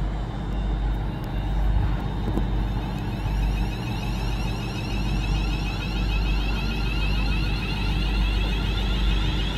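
Railway train running at the station: a steady low rumble with a thin high whine, and a fine rapid high flutter joining in about three seconds in.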